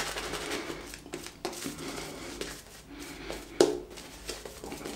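Shaving brush swishing lather over the face, a soft, irregular bristly rustle. A single sharp knock comes about three and a half seconds in.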